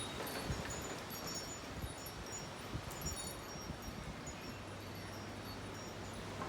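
Wind chimes tinkling in the wind: scattered light high notes at a few fixed pitches, busiest in the first half, over a steady rush of wind and rustling leaves.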